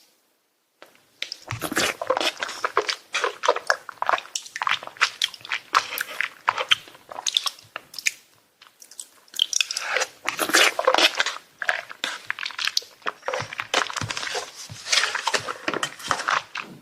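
Close-miked eating: a person biting and chewing food with crunchy, wet mouth sounds, starting about a second in, with a short pause partway through.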